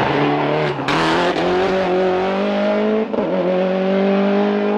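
Toyota Celica GT-Four Group A rally car's turbocharged four-cylinder engine under hard acceleration, its note climbing in pitch, with a short break about three seconds in as it changes gear before pulling again.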